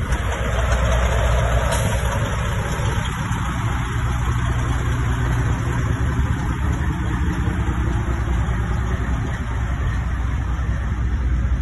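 Semi-truck's diesel engine idling: a steady low rumble.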